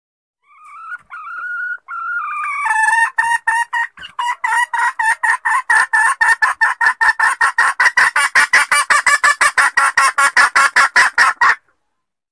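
Female junglefowl calling: a drawn-out wavering note, then a fast run of short clucking notes, about five a second, growing louder and cutting off suddenly. It is a hen's call used as a lure to draw wild junglefowl cocks out of cover.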